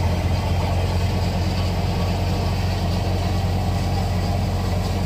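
Tractor-driven multicrop thresher threshing wheat: a steady, unchanging low engine drone with the thresher's running hum.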